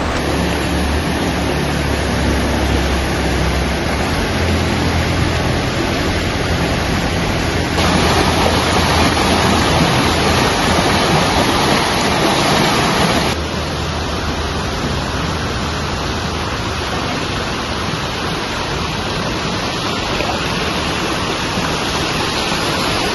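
Shallow river water rushing over rock ledges, a steady rushing noise that gets abruptly louder about eight seconds in and drops back about five seconds later.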